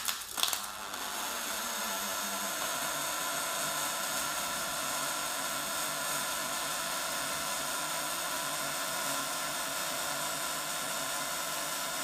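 Pulsed MIG/MAG welding arc from an EWM Picomig 180 Puls inverter welder laying a bead: a steady, even buzzing hiss with no spatter crackle. A few loud crackles mark the start of the arc.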